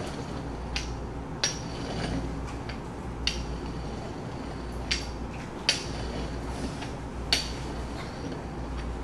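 Metal rolling pin working a round of dough on a wooden table, giving about six sharp, light clinks at uneven intervals over a steady low hum.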